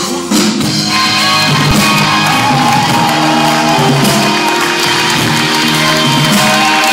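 Live band playing an instrumental passage of a rock-chanson song, with guitar among the instruments and no vocals.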